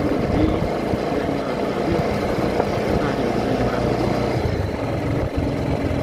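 Motorcycle riding along at a steady pace: a steady engine hum under a constant rush of wind on the microphone.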